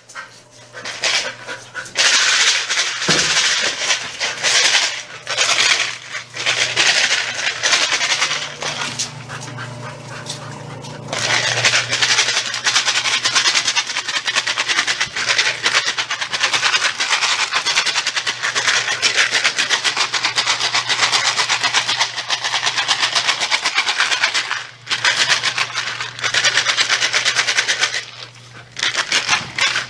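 Dry dog kibble rattling inside a capped plastic bottle as a dog pushes and rolls it around: a dense, continuous rattle with a few short lulls.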